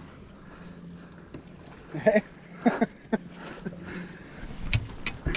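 Two short voice sounds, followed by a few sharp knocks, over a faint steady low hum.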